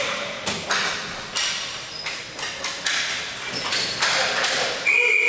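Ball hockey sticks clacking sharply against the ball and the floor, echoing around a large arena, then a referee's whistle blows near the end to stop play.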